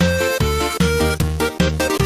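Musical remix of the Indonesian 'Basuri' multi-tone bus horn tune, a run of short repeated notes over a heavy bass line, a new note every third of a second or so.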